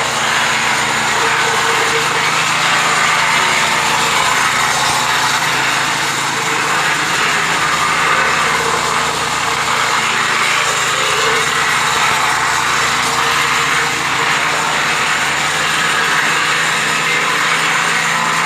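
The newly fitted engine of a paving-block machine running steadily on a test run, a loud, even drone that does not change.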